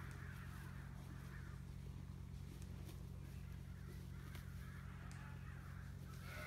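Faint, harsh animal calls, a few times, over a steady low hum.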